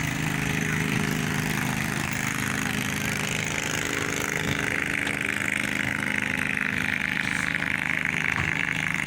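Glotok river boat engine running steadily at a constant speed.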